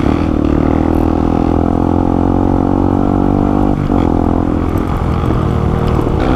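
A single-cylinder four-stroke dirt bike engine running at a steady throttle while riding along, heard up close from the bike. Its pitch dips briefly a little under four seconds in, then holds steady again.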